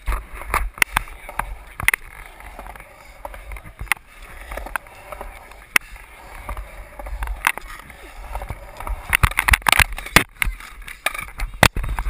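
Skateboard wheels rolling on the concrete of a bowl, with sharp clacks from the board and trucks striking the coping and surface. There is a quick run of clacks about nine to ten seconds in.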